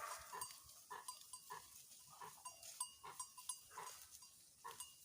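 Goat herd browsing in scrub, heard faintly: scattered short rustles and small noises, with no calls.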